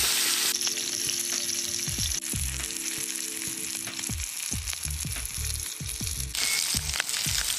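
New York strip steak sizzling and frying in butter in a cast-iron skillet, a steady crackling hiss.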